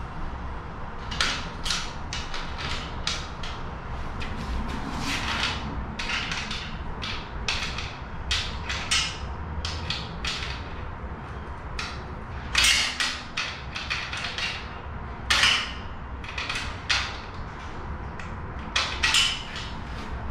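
An open-end wrench working a bolt that fastens an awning bracket to a steel roof basket: irregular metal clicks, clinks and scrapes as the wrench is turned and reset on the bolt head. A few louder clanks come in the second half.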